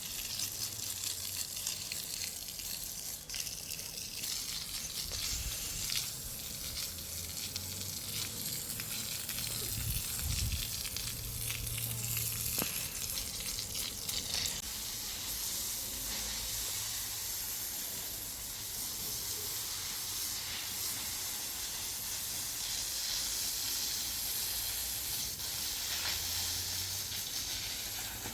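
A steady hiss, with a few low thumps about ten to twelve seconds in.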